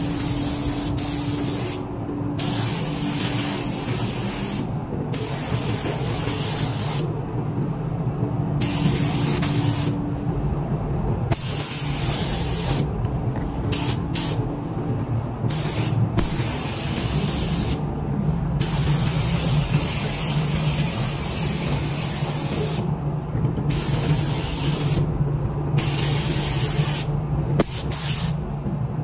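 Gravity-feed paint spray gun hissing as it sprays, in passes of one to several seconds broken by about a dozen short pauses, over a steady low hum.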